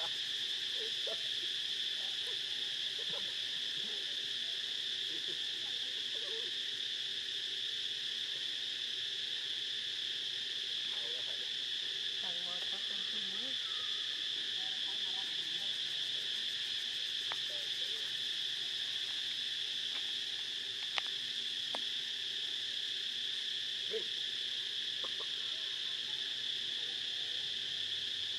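Steady, unbroken high-pitched insect chorus, with a few faint short low calls in the background and a single sharp click about two-thirds of the way through.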